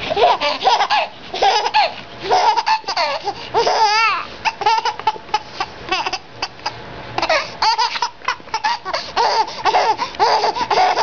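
Baby laughing hysterically: a run of high-pitched belly laughs in quick bursts, with a short break a little past the middle.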